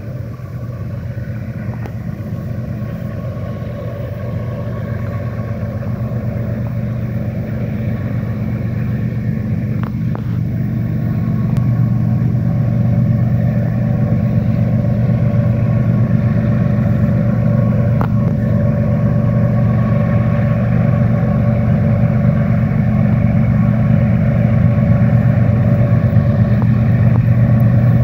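Diesel engines of two CSX locomotives running steadily as a coal train approaches: a deep, even drone that grows louder, stepping up about halfway through.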